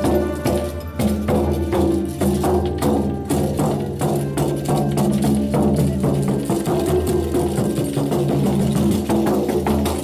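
A large hand-held shaman's frame drum beaten with a beater in a fast, even rhythm, with steady low tones sounding underneath.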